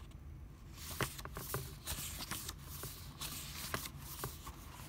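Pages of a hardcover book being turned and handled: paper rustling and flicking, with several short, sharp ticks.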